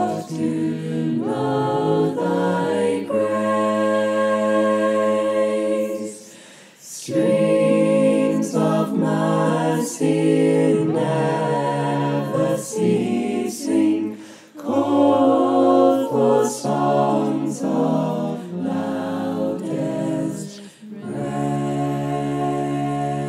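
Mixed choir of men and women singing a cappella in parts, holding full chords, with two short breaths near 7 and 14.5 seconds in and a long held final chord near the end.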